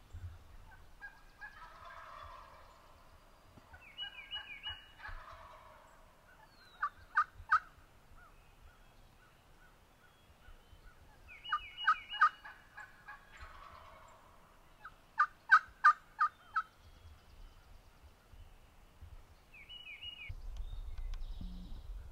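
Wild turkey gobblers gobbling, in three loud rattling bouts with fainter gobbling between them. A low rumble builds near the end.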